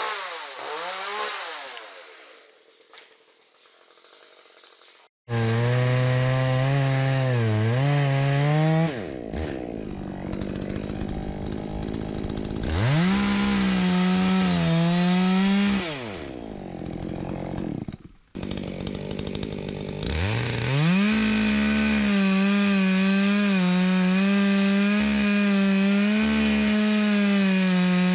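Chainsaw revving and then running at full throttle through wood in several long cuts, dropping back to a lower pitch between them. Near the start it blips its throttle a couple of times and fades out. Later it starts again abruptly and holds a long, steady cut to the end.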